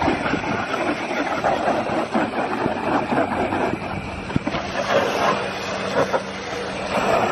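Water spray from a hose rinsing a snowmobile, spattering steadily against its plastic body panels, footrests and suspension.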